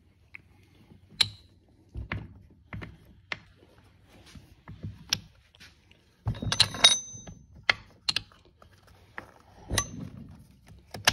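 Steel transmission gears and shafts clinking and knocking against each other and the case as they are worked loose and lifted out by hand: scattered sharp metal clicks, with a louder run of clanking about six seconds in that rings briefly.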